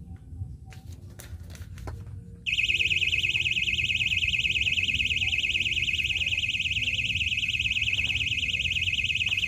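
A fishing rod's electronic bite alarm starts sounding about two and a half seconds in. It gives a loud, high-pitched beeping that pulses rapidly and continuously, the signal that a fish has taken the bait and is pulling line.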